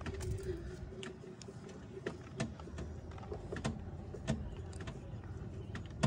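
Tata Punch's kit scissor jack being wound down with its crank rod: a run of light metallic clicks and knocks about twice a second as the car is lowered back onto its tyre.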